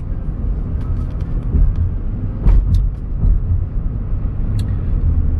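A car moving along the road, heard from inside the cabin: a steady low rumble of engine and road noise, with a few faint ticks and clicks.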